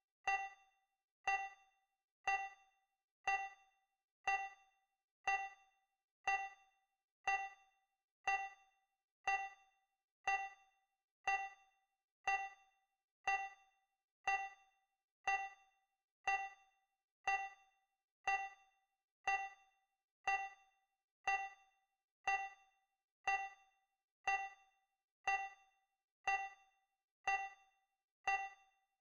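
Countdown timer's tick sound effect: a short, pitched ding with several tones that dies away quickly, repeating steadily once a second, one for each second counted down.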